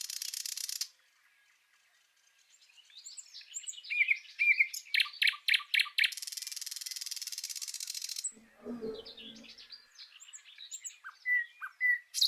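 Small birds chirping outdoors: rapid series of sharp repeated chirps and short gliding calls, with a dry, buzzy trill that starts a few seconds in and stops about two-thirds of the way through.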